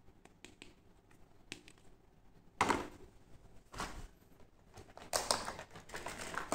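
Toy parts and plastic packaging being handled: a few light clicks, then three spells of crinkling and rustling from the clear plastic blister tray, the last lasting about a second and a half.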